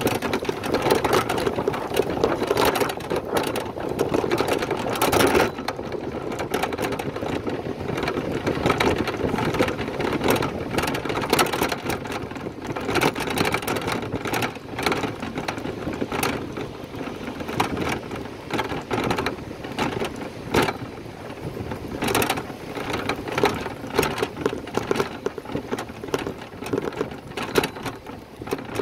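Ongoing rattle and rush of a bicycle being ridden, with many small knocks and clicks over a steady rushing noise.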